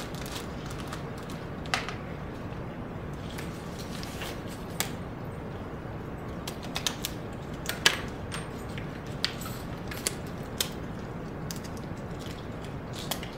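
Disposable latex gloves being stretched and pulled onto the hands: a dozen or so sharp, irregular snaps and clicks, the loudest about eight seconds in, over a steady background hiss.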